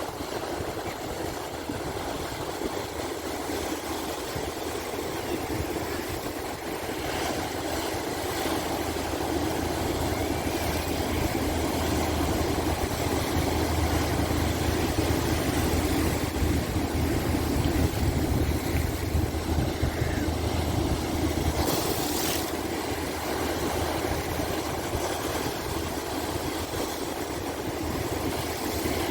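Calm sea waves washing in and out, swelling louder for several seconds through the middle, with a brief sharper hiss of breaking water about three quarters of the way through.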